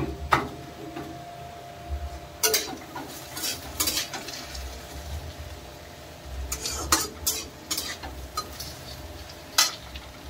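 A metal utensil stirring and scraping in a cooking pan, with sharp clinks at irregular intervals. They are busiest about two and a half seconds in and again around seven seconds in.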